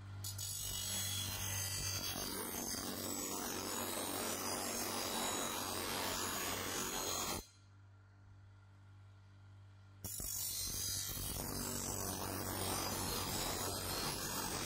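Bench grinder running, with a steel sword blade held against its abrasive wheel: a loud, steady grinding hiss over the motor's hum. About halfway through, the grinding stops for a couple of seconds, leaving only the motor hum, then starts again.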